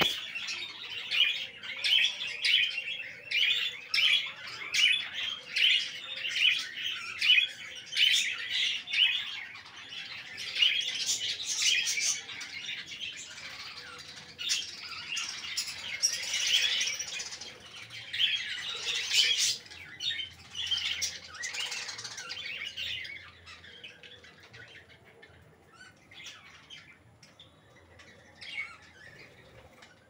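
A flock of budgerigars chirping and chattering: first a run of sharp chirps about two a second, then denser overlapping chatter, thinning to fainter scattered chirps over the last several seconds.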